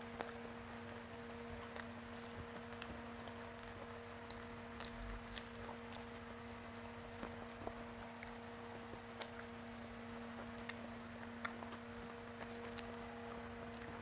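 Close-up mouth sounds of a person eating rice with fried okra by hand: soft chewing with small scattered clicks and smacks, over a faint steady hum.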